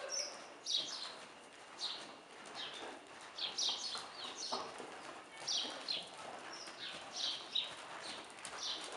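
Paint horse trotting on the dirt footing of an indoor arena: hoofbeats, with short high chirps scattered throughout.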